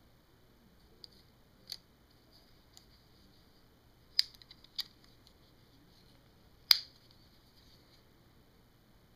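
Custom balisong butterfly knife being handled: sharp metallic clicks from its handles and T-latch, about six in all, the loudest a little past four seconds and near seven seconds.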